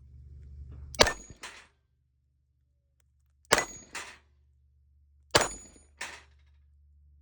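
Three shots from a Colt Agent .38 Special snub-nose revolver, about two seconds apart, each followed about half a second later by a fainter clang of the bullet striking a steel plate target.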